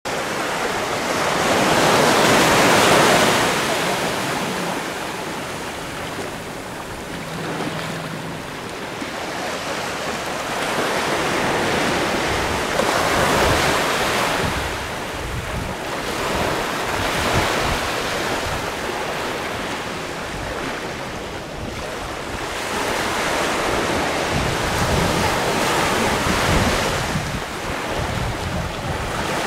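Small sea waves washing in over coastal rocks, the wash swelling and easing every few seconds, with wind on the microphone.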